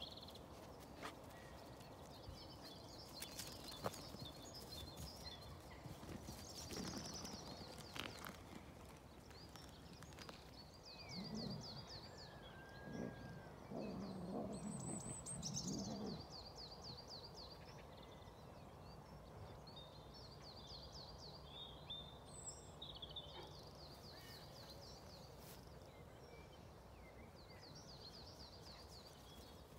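Songbirds singing in open farmland: short, rapid trilled phrases repeated again and again, with a few lower, louder calls about halfway through.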